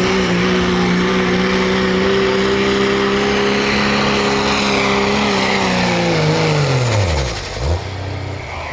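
Dodge Ram pickup's Cummins inline-six diesel running at full throttle under load as it pulls the sled, a steady drone. About six seconds in the revs fall steeply as the truck stops at the end of its pull, and the engine settles to a low rumble.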